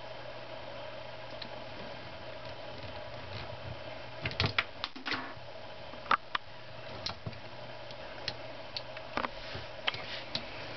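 Small plastic Lego pieces clicking and tapping as hands fit a tiny chainsaw piece onto a Lego fire ATV: scattered sharp clicks starting about four seconds in, over a steady low hum.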